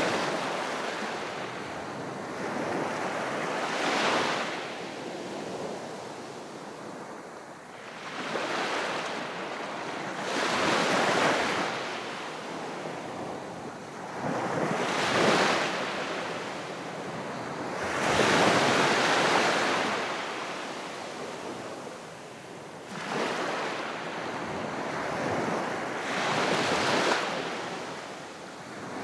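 Calm sea waves breaking gently on the shore: a wash of surf that swells and falls back every three to four seconds.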